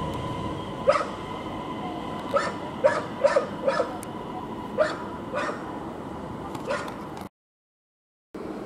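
A dog barking in an uneven series of short barks, a few in quick succession, over a steady hum. The sound cuts out for about a second near the end.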